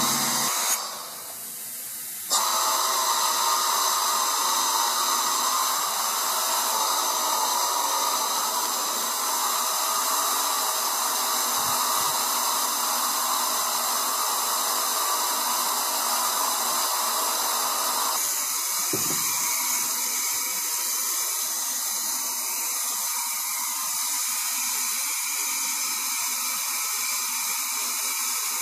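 Steady hiss of compressed air flowing through the hose and regulator into a collapsed 300-gallon holding tank at about 5 psi, pressurising it to push the walls back out. The hiss dips briefly about a second in, then returns, and turns thinner about two-thirds of the way through.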